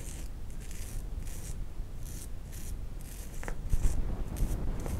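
Safety razor (Soviet 'Yunost') blade scraping through several days' stubble on the upper lip in short repeated strokes, about two a second, during the first pass of a wet shave. A light knock comes about three and a half seconds in.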